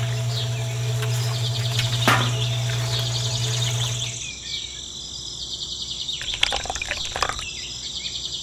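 Miniature concrete mixer's small electric motor humming steadily, cutting off about four seconds in, with high bird chirping throughout. A few light clicks and scrapes follow later on.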